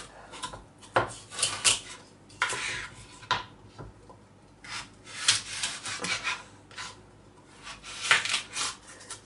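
Kitchen knife cutting thick raw carrots lengthwise on a cutting board: a series of short, irregular cutting and scraping strokes, the blade knocking the board now and then.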